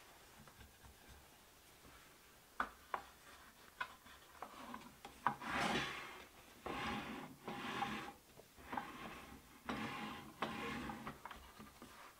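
Hardwood vise parts being handled: a few light knocks, then a series of scraping rubs of wood sliding against wood, each lasting about half a second to a second.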